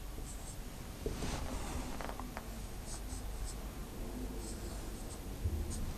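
Marker pen writing on a whiteboard in short, irregular strokes.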